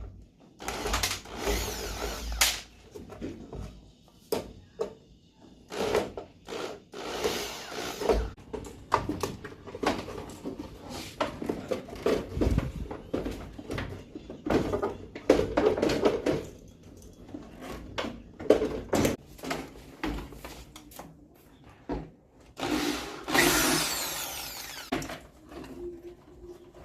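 Power drill-driver running in short bursts of a second or two, backing out screws. Between bursts come clicks and knocks of parts being handled.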